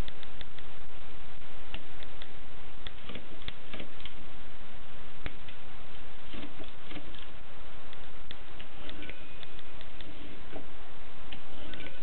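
Kolibri typewriter keys striking in an irregular run of sharp clicks, over a steady hiss.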